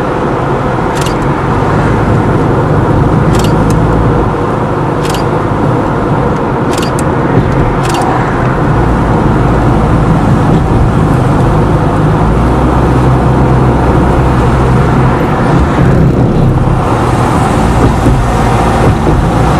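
Car driving at a steady pace: a continuous low engine hum and tyre-on-road noise, with a handful of short sharp clicks or knocks in the first eight seconds or so.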